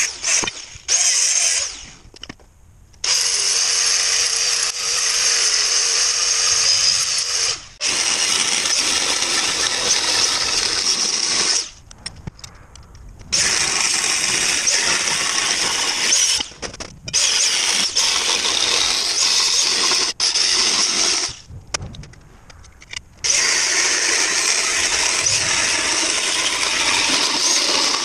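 Electric angle grinder grinding steel, in a series of passes lasting a few seconds each with short pauses between them as the grinder comes off the work.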